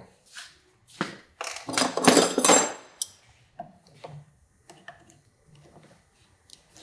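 Metal hand tools clattering for about a second and a half as a razor blade is swapped for a pair of cutters, then faint clicks and rubbing as the cutters work at a motorcycle handlebar grip.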